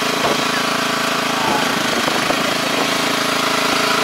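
Kubota four-row rice transplanter's small engine running steadily as the machine works through a flooded paddy, with scattered clicks and knocks from the machinery.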